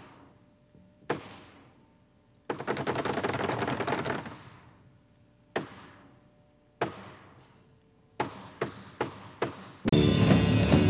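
Sharp single knocks on wooden tabletops, a fast drumming rattle of taps lasting about two seconds, two more single knocks, then a quick run of five knocks. Near the end a live rock band comes in loudly with drums.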